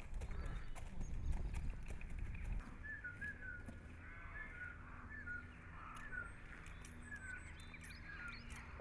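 A horse's hooves stepping on a sandy yard as it is led at a walk, the footfalls stopping about two and a half seconds in as it is halted. Short high chirps follow.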